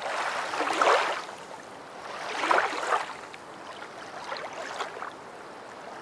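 Rushing, splashing water noise from a boat moving on a lake, rising and falling in irregular swells, the strongest about a second in and again around two and a half seconds.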